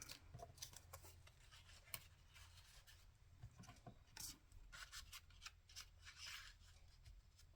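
Near silence with faint rustles and light taps of paper pieces being handled and slipped into a paper pocket, a few soft ticks scattered through.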